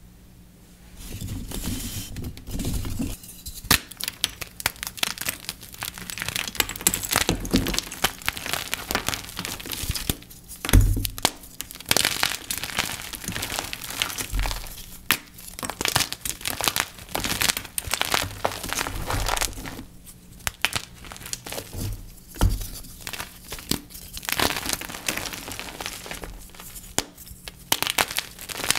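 Blocks of dyed gym chalk being crunched and crushed by hand, a dense run of crumbly, crackling crunches with occasional dull thumps.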